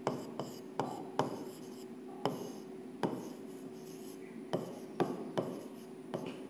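A stylus tapping and scraping on the glass face of an interactive whiteboard display during handwriting: sharp, irregular ticks one or two a second with short rasping strokes between them, over a faint steady hum.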